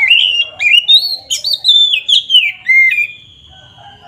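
Oriental magpie-robin (kacer) singing loud, full-voiced 'ngeplong' song: a quick run of clear whistled notes sliding up and down for about three seconds, ending in a long held note that slowly falls.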